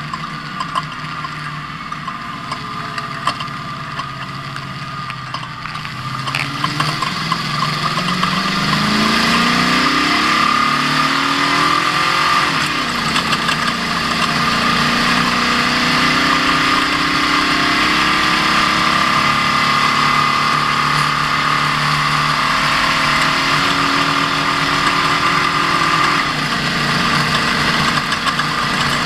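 Ford Ranger off-road race truck's engine under way: the revs climb in a rising pitch from about six seconds in, then hold steady and loud at speed, and the note changes near the end.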